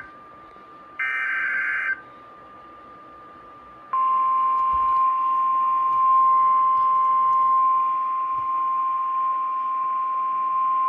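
NOAA Weather Radio emergency alert signalling. About a second in there is a one-second burst of shrill SAME header data tones. About two seconds later the steady single-pitch 1050 Hz warning alarm tone starts abruptly and holds, announcing the tornado warning that follows.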